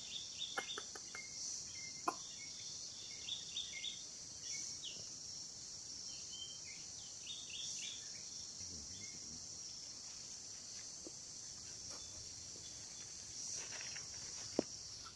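Steady high drone of forest insects that swells briefly every three seconds or so, with scattered short high chirps in the first half and a few faint sharp clicks.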